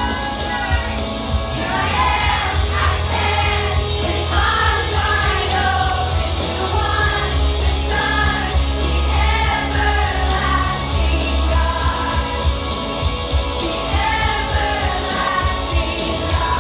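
A children's choir singing along with amplified music that has a strong, steady bass.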